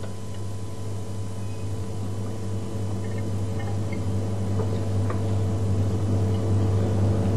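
A steady low hum that grows slightly louder over the seconds, with a couple of faint light ticks about halfway through.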